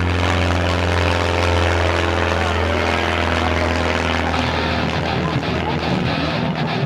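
Aerobatic biplane's piston engine and propeller droning in flight, a steady pitch that turns uneven and wavering in the last few seconds.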